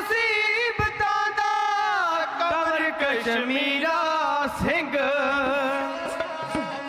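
Dhadi singers singing a long, wavering melodic line in a Punjabi dhadi ballad, with sarangi accompaniment.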